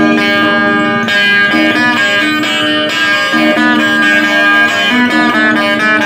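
Acoustic guitar picking an instrumental melody over repeated low notes.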